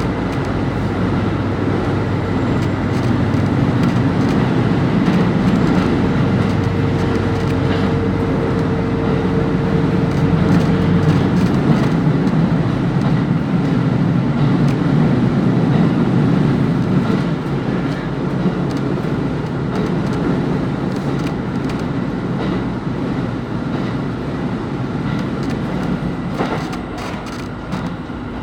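KiHa 25 diesel railcar running, heard from on board: diesel engine hum over wheel-and-rail noise. The engine's steady tones drop away about twelve seconds in, and the sound eases off over the second half, as when the engine throttles back.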